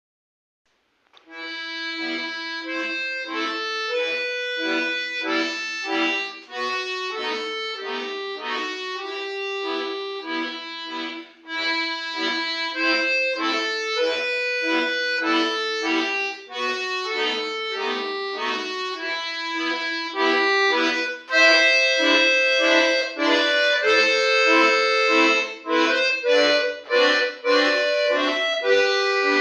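Solo accordion playing an arrangement of a Russian folk song, with melody over held chords. It starts about a second in and gets louder and fuller from about two-thirds of the way through.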